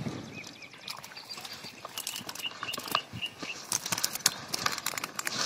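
Dry reeds rustling and crackling as a mesh fish keepnet is hauled out of the water, with water pouring and dripping from the net, loudest in the second half. A small bird chirps a few times in the middle.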